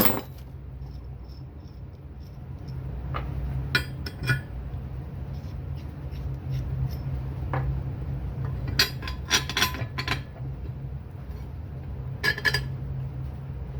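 Steel bolts and washers clinking and knocking against drilled steel plates as they are handled and fitted through the holes, in scattered clusters of sharp metallic clinks, over a steady low hum.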